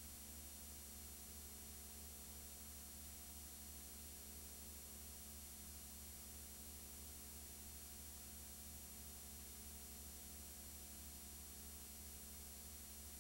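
Near silence: a steady low hum with faint hiss, and no sound of the race cars.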